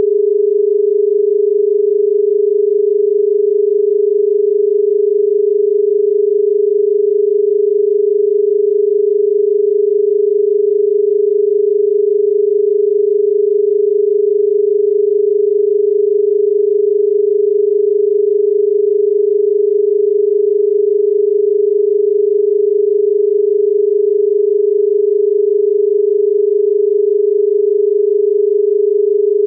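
Australian telephone dial tone: 400 Hz and 425 Hz tones sounded together, steady and unbroken, the signal that the exchange is ready for a number to be dialled.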